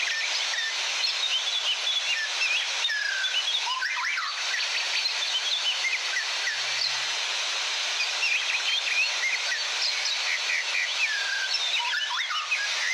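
Many birds chirping and whistling in short, overlapping calls over a steady rush of falling water.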